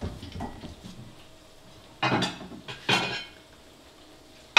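Two brief clatters of kitchenware being handled, about two and three seconds in, less than a second apart.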